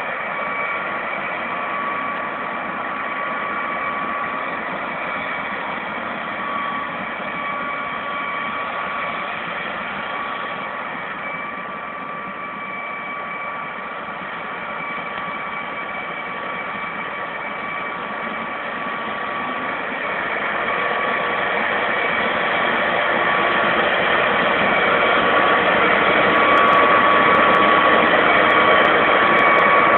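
John Deere 9965 cotton picker running as it harvests: a steady drone of engine and machinery with a steady high whine over it, getting louder from about twenty seconds in as the machine comes close.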